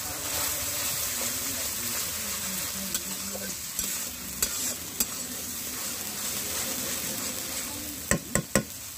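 Onion paste sizzling in hot mustard oil, stirred with a spatula that scrapes and clicks against the pan, with three sharp knocks on the pan near the end.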